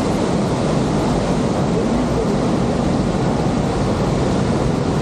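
Waterfall in spate, swollen by days of heavy rain: a loud, steady rush of falling water.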